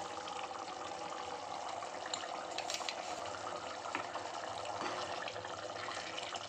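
Thick tamarind curry boiling in an open pressure pan, a steady fizzing bubble with a few faint clicks.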